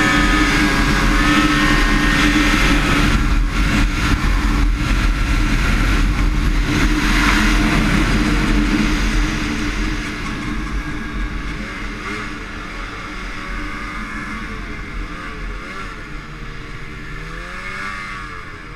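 Two-stroke 800 snowmobile engine running hard at speed, heard from on board the 2001 Polaris RMK 800, with wind and track rush. About halfway through it is throttled back and the sound drops. Near the end the engine pitch wanders up and down.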